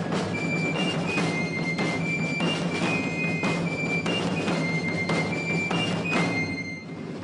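Background music with a steady drum beat of about two strokes a second, under a high stepping melody and a low held drone. The music dips briefly near the end.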